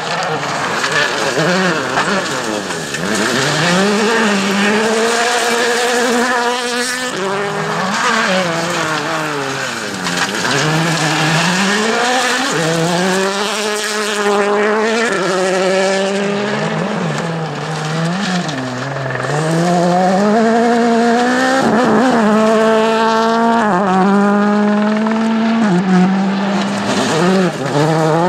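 Rally car engine at full stage pace, its revs climbing and dropping again and again through gear changes and lifts for corners, with tyre and gravel noise under it.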